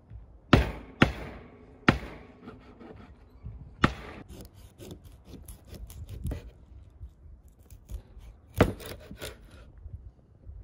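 A large knife cutting a catfish into steaks on a wooden cutting board: sharp knocks of the blade hitting the board, three in the first two seconds, one about four seconds in and one past eight seconds, with quieter sawing and scraping of the knife through the fish between them.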